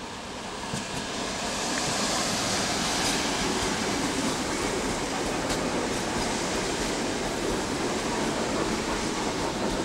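ER2T electric commuter train pulling into the station and running past close by. Its wheels on the rails make a steady rolling rush that grows over the first two seconds and then holds, with a few faint clicks at the rail joints.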